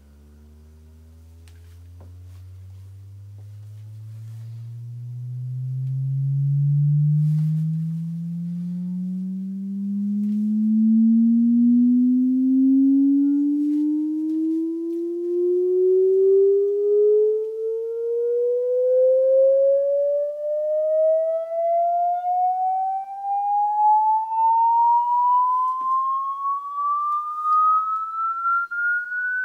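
A sine-wave sweep test tone played back on a Nakamichi 700 II cassette deck for a frequency-response check. It glides slowly and steadily upward from deep bass to about 1.5 kHz, grows louder over the first several seconds, and wavers in level as it climbs.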